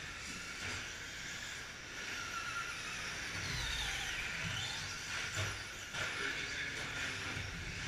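Electric 1/10 short-course RC trucks with 17.5-turn brushless motors racing on a dirt track, their high motor whine over a steady hiss of tyres on dirt. About halfway through, one whine dips and then rises in pitch. A couple of sharp knocks follow.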